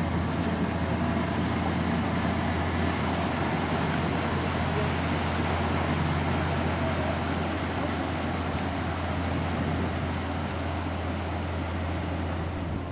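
Motor launch's engine running steadily as the boat pulls away from the pier and heads out, a constant deep drone with the churn of its propeller wash.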